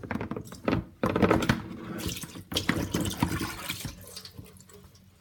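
Water running into a sink with splashing and knocks, strongest in the middle and tailing off near the end.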